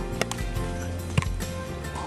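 Background music: held tones with a couple of sharp percussive hits.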